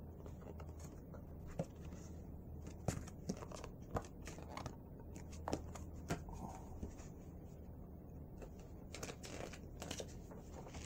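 Pages of a picture book being handled and turned: faint paper rustles with scattered sharp clicks and taps, over a low steady hum.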